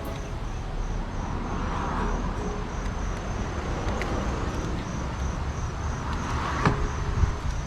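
Outdoor road traffic passing, heard as two swelling rushes: one about two seconds in and one near the end, over a steady low rumble. There is a sharp click near the end.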